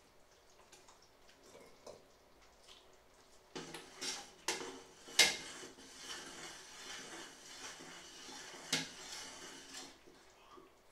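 A metal ladle scooping in a large stainless-steel pot: several sharp clinks against the pot, the loudest a little past midway, with liquid sloshing between them.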